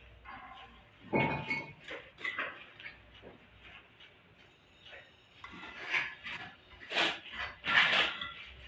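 Bricklaying: a steel trowel knocking and scraping on hollow clay bricks and mortar as bricks are set along a wall course. Irregular short clinks and knocks, one ringing clink about a second in, and several in quick succession near the end.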